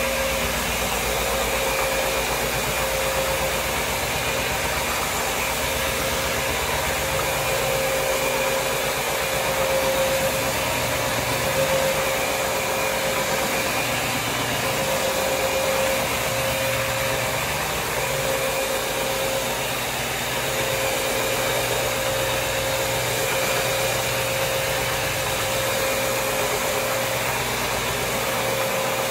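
Counter-rotating brush (CRB) floor machine running steadily, its brushes scrubbing wet stripping solution across a linoleum floor to lift old wax, with a steady whine over the motor noise.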